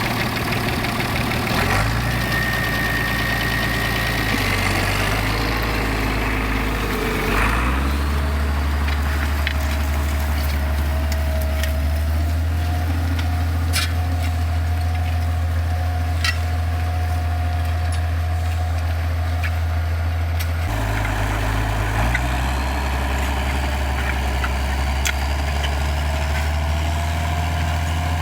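A large engine running steadily, its speed changing a few times: around two seconds in, again around seven seconds, and again about twenty seconds in.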